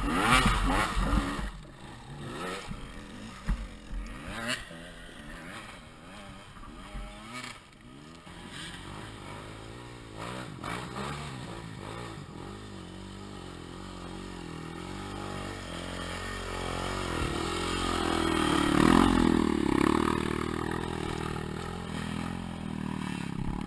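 Dirt bike engine running at changing revs, heard from the rider's helmet, with scattered knocks and clatter in the first several seconds. It revs up and grows louder for a few seconds around 17 to 20 seconds in, then eases off.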